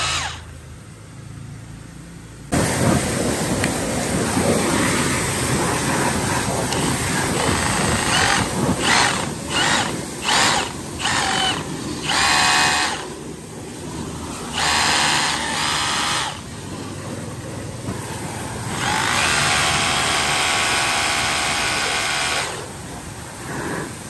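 Milwaukee M18 BLHACD26 cordless brushless rotary hammer's motor whirring free in repeated trigger bursts: several quick blips, then a few longer runs of one to three seconds. Under them is a steady rushing background noise.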